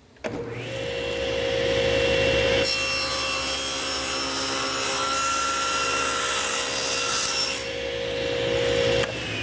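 Table saw starting and spinning up. About two and a half seconds in, the blade cuts a tenon cheek into the end grain of a board held upright in a tenoning jig; the cut lasts about five seconds. Near the end the saw is switched off and its whine falls as the blade coasts down.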